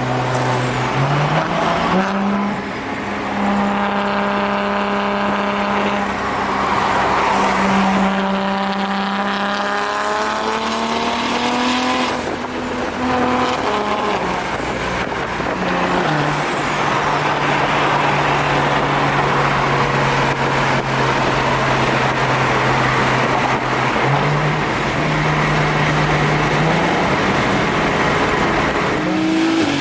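Car engine and exhaust under way, holding a steady note for several seconds at a time, then rising and dropping in pitch as it speeds up and changes gear.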